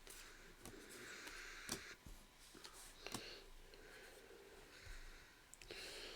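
Faint handling of trading cards being sorted on a table: soft sliding and rustling with scattered light taps, two of them sharper, the first nearly two seconds in and the next over a second later.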